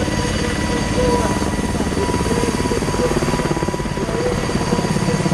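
Mi-26 heavy-lift helicopter running on the ground with its eight-blade main rotor turning: a fast, steady rotor chop under the steady high whine of its turbine engines.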